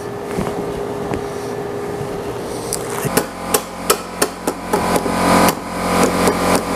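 Wooden mallet knocking on a glued-up board panel held in pipe clamps, a quick run of about a dozen sharp knocks, roughly three a second, starting about halfway through. The taps drive the glued boards flush to take the warp out of the joint. Before the knocks there is only a steady hum.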